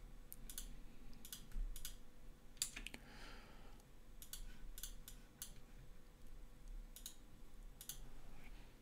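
Computer mouse buttons and keyboard keys clicking at an irregular pace, about a dozen sharp clicks over a faint steady hum.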